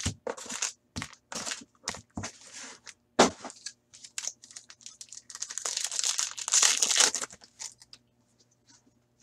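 Upper Deck Trilogy hockey card packs being handled and torn open: a run of short crinkling and crackling wrapper noises, a longer stretch of crinkling tearing about six to seven seconds in, then only faint rustles near the end.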